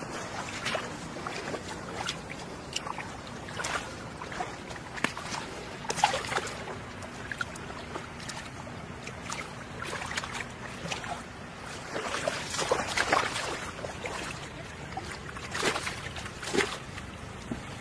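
Hands splashing and sloshing in shallow muddy floodwater while catching fish by hand, irregular splashes over a steady background rush, with louder bursts about six seconds in and again after twelve seconds.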